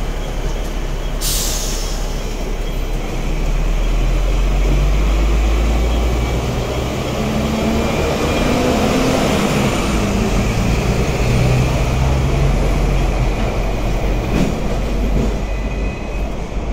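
Hong Kong double-decker tram running on its street rails: a steady rumble of wheels and running gear heard from the upper deck, growing louder about three seconds in. A short sharp hiss comes about a second in.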